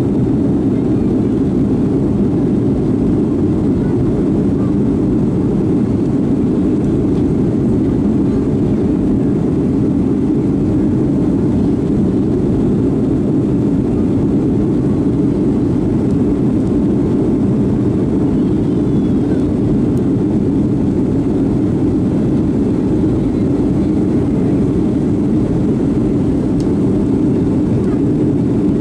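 Steady cabin roar of a Boeing 757-200 climbing out after takeoff: its twin jet engines and the rushing air are heard through the fuselage as a low, even rumble.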